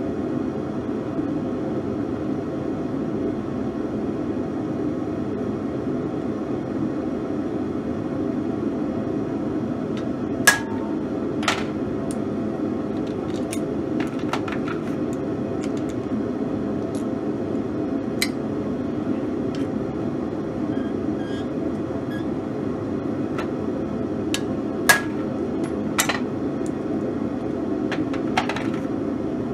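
Steady rushing of a propane forge burner, with scattered light metallic clinks as steel letter stamps are picked from their wooden block and handled; the sharpest clinks come about ten seconds in and again about twenty-five seconds in.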